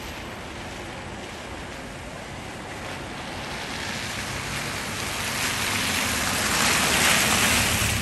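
An SUV passing on a wet, slushy street: the tyre hiss swells over several seconds, peaks about seven seconds in, then begins to fade.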